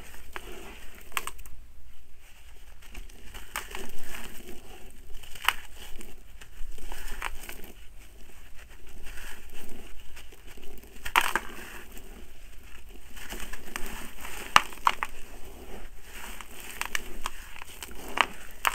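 Hands crumbling a block of gritty soil and rubbing loose soil and small pebbles in water: irregular gritty crunching and crackling, with a few sharper crunches.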